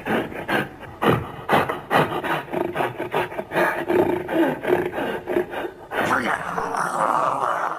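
Monster or ape roar sound effect: a rapid series of short, rough grunting pulses, about four or five a second, then a longer held growl for the last couple of seconds before it cuts off.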